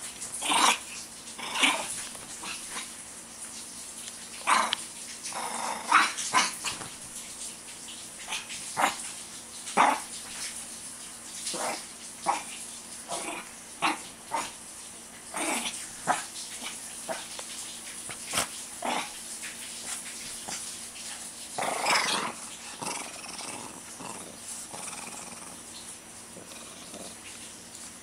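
A Shih Tzu playing rough, giving short growls and yaps in irregular bursts every second or so, with a longer flurry late on.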